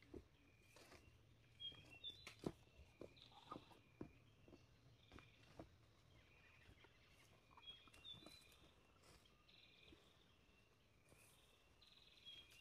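Faint footsteps on a leaf-littered dirt forest trail, a step about every half second that thins out and fades after five or six seconds as the walker moves away. A few faint high chirps sound now and then.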